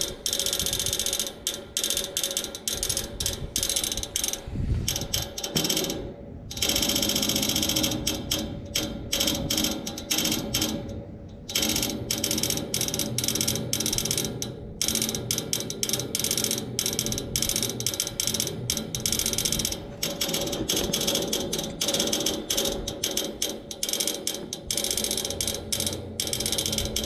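Outdoor air-conditioning unit with its fan stopped, making a rapid, ratchet-like clicking over a steady hum, as if trying to crank on something but not starting. The clicking briefly drops away twice. It persists even after the fan motor was replaced.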